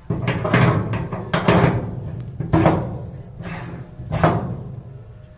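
A series of five heavy knocks about a second apart, each followed by a short low rumble.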